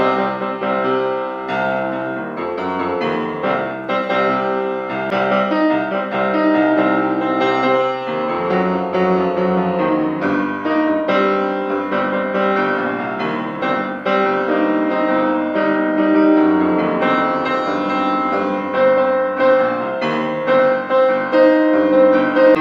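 Instrumental music led by piano: a melodic piece of continuous chords and moving notes, with some longer held tones.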